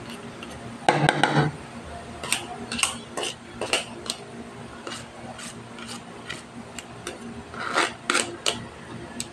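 Metal spoon scraping and clinking against a perforated stainless-steel colander while pressing boiled potato through it, in irregular strokes. The longest and loudest scrape comes about a second in, with a cluster of scrapes near the end.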